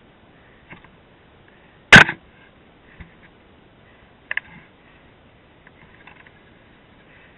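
Sharp knocks and small clicks from a dirt bike being handled with its engine not running: one hard, loud knock about two seconds in, a double knock a little past four seconds, and faint clicks in between.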